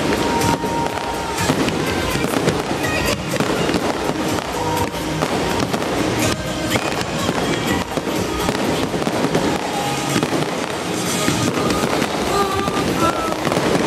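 Fireworks going off in repeated bangs and crackles, with music playing over a loudspeaker system.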